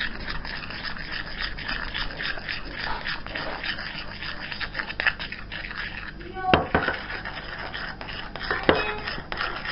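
Continuous scraping and scratching handling noises, with two sharper knocks about six and a half and eight and a half seconds in.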